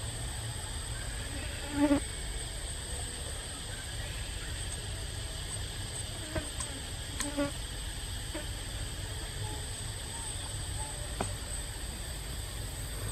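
Steady high-pitched drone of insects over a low rumble, broken by a few brief short sounds: the loudest about two seconds in, and two more around seven seconds.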